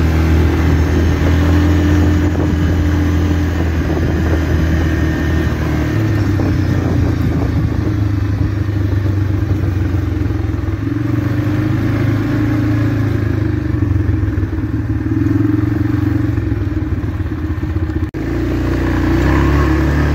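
2004 Yamaha Kodiak 450 ATV's single-cylinder four-stroke engine running while riding along a dirt trail, its pitch shifting up and down a few times with the throttle. The sound cuts out for an instant near the end.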